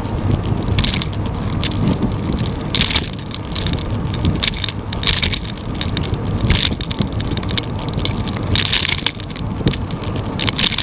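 Wind buffeting the microphone of a bicycle-mounted camera while riding, over a steady rumble of tyres on the pavement. Short hissing bursts come every second or two.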